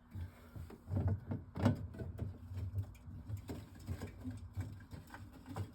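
Cans of pop being taken out of a refrigerator by hand: a run of light knocks and clunks, the loudest about a second and a half in.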